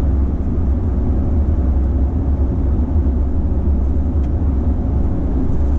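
Steady low rumble of road, tyre and drivetrain noise heard inside the cab of a 2021 Toyota Tacoma TRD Off Road cruising at about 60 mph.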